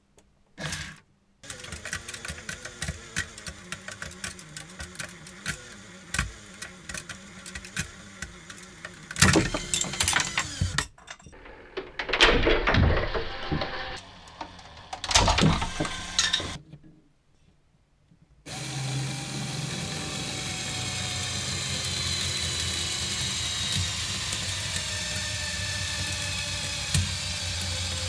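LEGO electric motors driving a gear train that twists an aluminium beam under load: a long run of rapid clicking from the gears, broken by several loud grinding bursts. After a brief pause, a second, larger rig runs with a steady motor drone.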